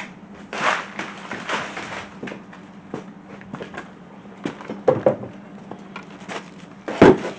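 Air-intake kit parts being handled and set down: rustling and clattering with scattered clicks, and a sharp knock about seven seconds in.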